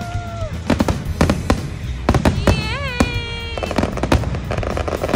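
A fireworks display: shells bursting overhead in quick succession, with many sharp bangs and crackles.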